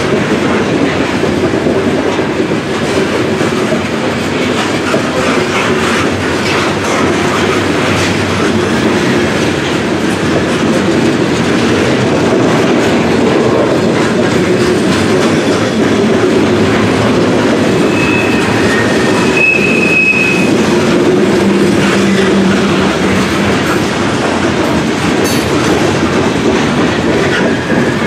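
A long string of loaded Norfolk Southern coal cars rolling past at close range, with a steady rumble and rattle and the wheels clicking over the rails. A brief high wheel squeal comes twice, about two-thirds of the way through.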